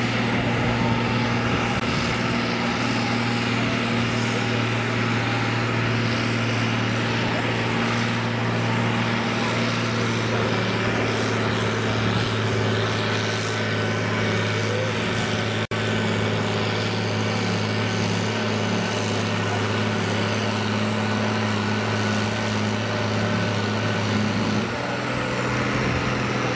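Farm tractor's diesel engine running hard at a steady, high pitch as it pulls a weight sled in a tractor pull. There is a momentary drop-out midway, and about 25 seconds in the engine note changes and eases slightly.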